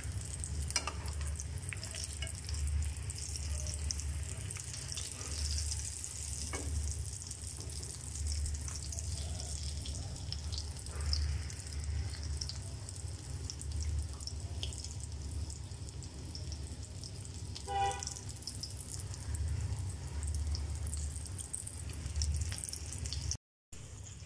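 Vermicelli-coated potato balls deep-frying in oil in a pan: a steady sizzling crackle, with a few light clicks and a low hum underneath.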